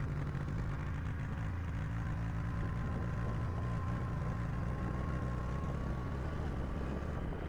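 Motorcycle engine running steadily while riding, with a low, even drone.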